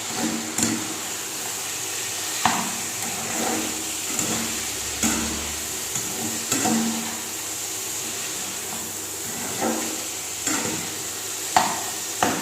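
Chicken pieces and onions sizzling in hot oil in a pan, with a spatula stirring and scraping against the pan every second or two.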